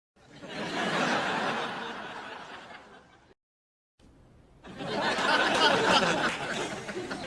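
Sitcom laugh track: a studio audience laughing, in two separate clips. The first swells up just after the start and fades out by about three seconds in; the second starts faintly at about four seconds, rises, and cuts off abruptly at the end.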